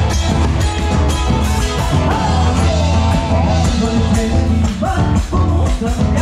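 Live band playing amplified folk-rock: drum kit, electric bass and electric guitar, loud and steady.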